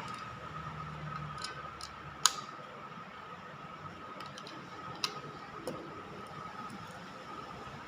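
A few sharp clicks and ticks, the loudest about two seconds in and another near five seconds, over a steady high whine.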